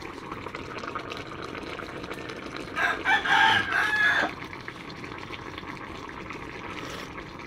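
A rooster crows once, about three seconds in, for about a second and a half. Under it, a chicken stew bubbles steadily as it simmers in an electric cooker pot.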